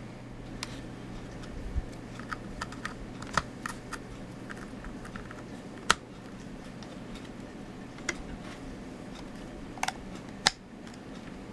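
Small, irregular plastic clicks and taps as SATA power and data cable connectors are handled and pushed onto a 2.5-inch laptop hard drive, with two sharper clicks about six seconds in and near the end. A steady low hum runs underneath.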